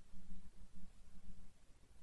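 Background room tone: a low, uneven hum with faint hiss, and no distinct event.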